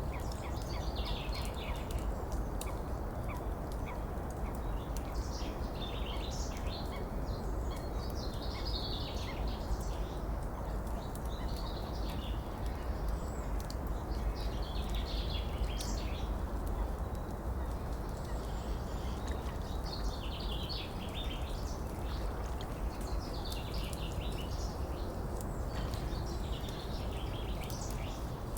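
Several birds chirping and singing in short clusters of calls over a steady rush of flowing water.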